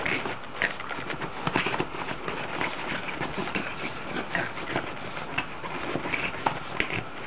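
A Boston terrier playing in her dog bed: continuous scuffling and rustling of the bed's fabric, with many short, irregular knocks.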